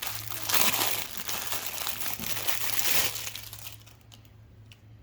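Plastic packaging crinkling and rustling as it is handled. It is loudest for the first three seconds or so, then fades to a few faint clicks.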